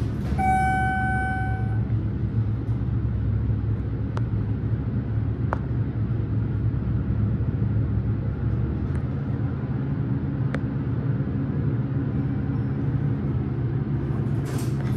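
1999 Schindler MT hydraulic elevator car running up between floors, a steady low rumble inside the cab. Near the start a single electronic tone sounds for about a second and a half, and a few faint clicks come through during the ride.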